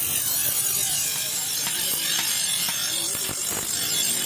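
Bench grinder's abrasive wheel grinding the steel blade of a butcher knife made from an old bearing, a steady harsh hiss of steel on stone, with a few short clicks in the second half.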